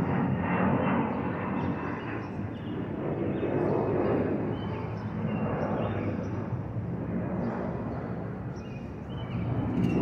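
Twin-engine jet airliner flying high overhead: a steady, distant rumble of jet engine noise that swells and eases slowly.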